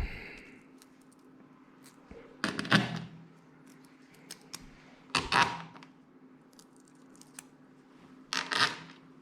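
Small metal bolts and spacers being handled and set in place, three short clinking, scraping rattles spaced a few seconds apart.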